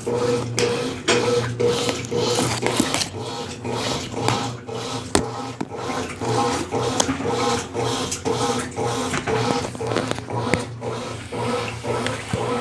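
Consul Facilite 10 kg top-loading washing machine in its wash stage: the motor hums as the agitator churns the clothes and water, with a rhythmic pulse about twice a second.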